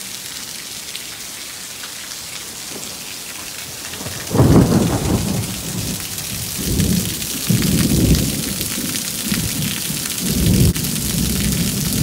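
Torrential rain hissing steadily on paving and steps; about four seconds in a loud thunderclap breaks and rolls on as a low rumble that swells and eases several times.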